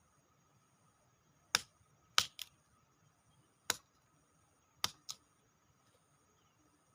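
Six sharp clicks or snaps at irregular intervals, two of them in quick pairs, over a quiet background.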